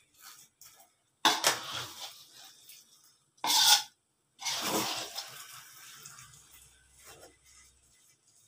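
Metal spatula scraping and folding thick, sticky biko rice in a nonstick wok. There are three loud scraping strokes, the sharpest about three and a half seconds in, with fainter scrapes between them.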